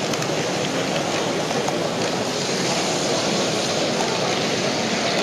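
HO-scale model train running along the track, heard from a camera riding on the train: a steady rushing rattle of wheels on rails.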